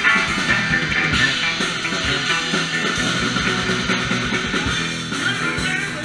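Live rock band playing, with electric guitar, bass guitar and drums.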